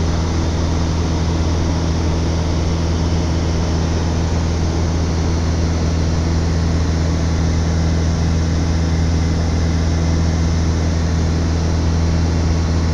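Single-engine light airplane cruising: the engine and propeller drone at a constant pitch, heard from inside the cabin, over a steady hiss of rushing air.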